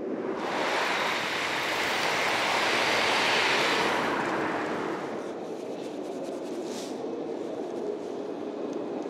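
A vehicle passing on a wet road: a hiss of tyres that swells, peaks about three or four seconds in and fades away by about five seconds. A steady low hum with a few faint clicks stays under it and after it.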